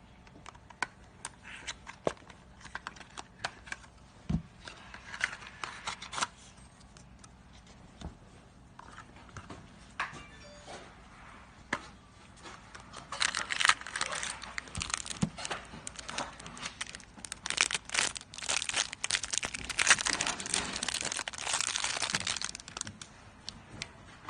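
Crinkling and tearing handling noises with scattered sharp clicks, thickening into a dense crackle from about halfway through.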